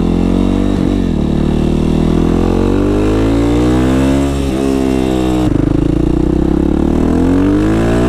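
Yamaha WR450F's single-cylinder four-stroke engine pulling hard under acceleration, its pitch climbing and then dropping sharply at upshifts about three times.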